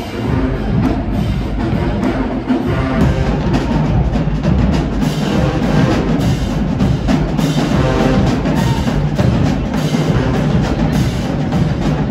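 HBCU marching band playing, with drums and percussion hitting hard under the horns.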